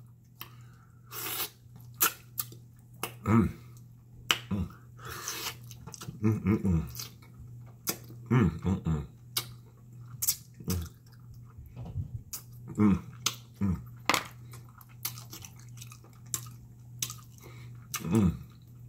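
Close-up chewing and lip-smacking as baked pig feet are eaten by hand, with many short wet clicks over a steady low hum.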